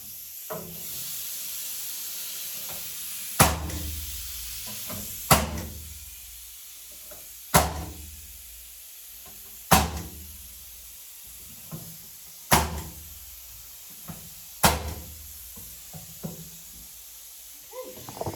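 Finish nailer driving 1.5-inch nails through 3/4-inch shelf boards: six sharp shots about two seconds apart, with a few lighter knocks and a steady hiss underneath.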